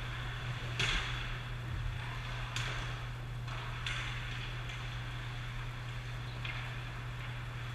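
Ice hockey rink during play: a steady low hum under an even hiss, with four short scrapes or knocks, the loudest about a second in.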